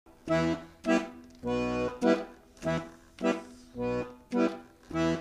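Accordion playing a bouncy run of short, detached chords, under two a second, with every few chords held a little longer.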